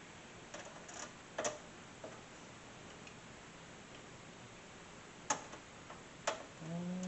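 Scattered sharp clicks and taps of metal parts as a hard-drive bay is fitted into a desktop PC case, with two louder clicks about five and six seconds in.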